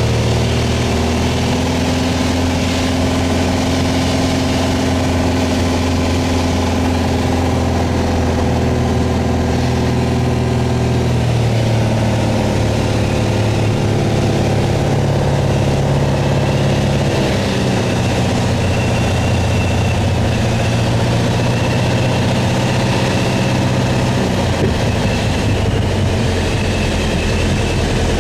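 Piper Arrow's single piston engine and propeller droning steadily inside the cabin on the landing approach, with air noise. The engine note shifts slightly about halfway through, and near the end the drone weakens as power comes back for the landing.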